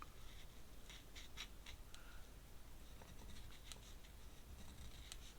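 Pen nib scratching on paper in faint, short, scattered strokes.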